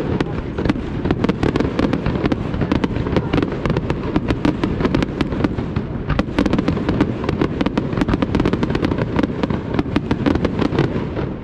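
Fireworks display: aerial shells bursting in a dense, continuous barrage of overlapping bangs and cracks, many a second, with no let-up.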